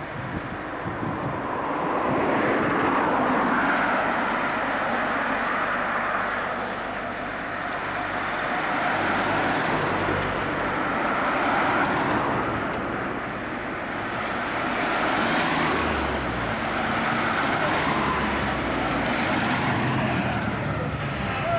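A convoy of classic Minis driving past one after another, engine and tyre noise swelling and fading with each car, about every three seconds.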